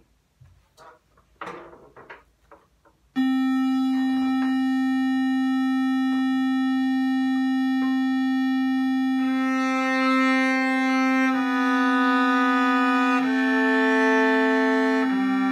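A steady drone tone on C starts abruptly about three seconds in. About six seconds later a cello joins, bowing a slow descending C major scale against the drone, one long note about every two seconds, each step lower than the last.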